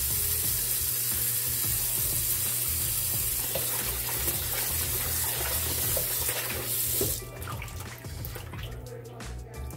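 Kitchen tap running into a colander of oxtail pieces in a sink while a hand rubs the meat under the stream. About seven seconds in the tap stops, and the hands slosh and splash the pieces in the standing water.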